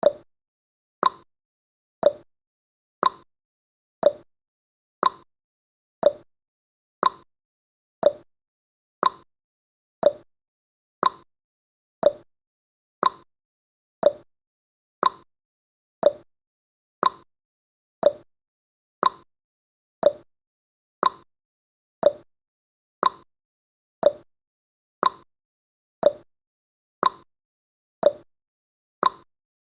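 Countdown timer's clock-tick sound effect: one short tick every second, alternating between a higher and a lower tick like a tick-tock.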